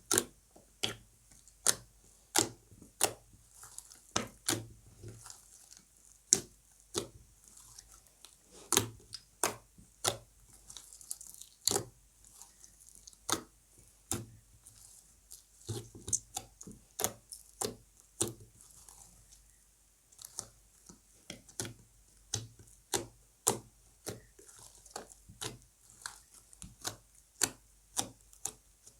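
Slime being mixed and squeezed by hand, giving a long irregular run of sharp sticky pops and clicks, about one or two a second.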